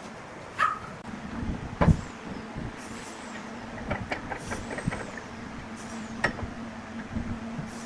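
Wood lathe running with a steady hum, with a heavy knock about two seconds in, scattered clicks and knocks, and short high hisses.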